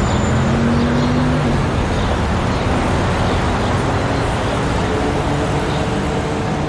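Busy street traffic: a steady wash of vehicle engine and tyre noise, with the hum of a nearby engine rising slightly in the first second or so and another engine tone coming in near the end.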